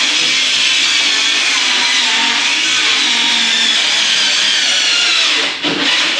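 Cordless power saw cutting through a sheet of OSB, running steadily at full speed on a freshly swapped battery; the blade is fine, and the earlier bogging down was a flat battery. The saw dips briefly about five and a half seconds in, then carries on.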